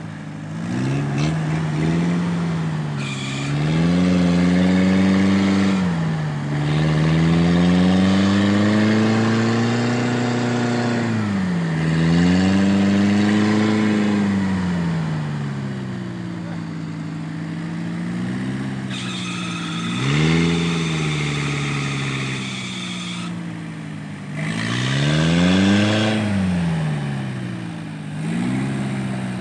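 Homemade farm truck's engine revving up and dropping back again and again, about six times, as the rear-wheel-drive truck struggles, stuck in deep mud.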